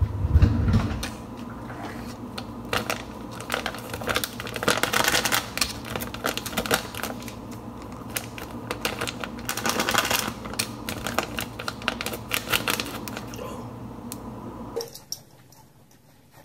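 Paper brownie-mix packet crinkling and crackling as it is handled and shaken, a dense run of sharp irregular clicks with two busier stretches of rustling. A low thump comes right at the start, and the sound cuts off to near quiet about 15 seconds in.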